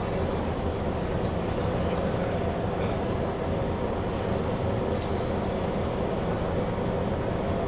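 Steady low machinery hum and rumble with a few constant tones, the drone of a cruise ship's engines and ventilation heard on deck.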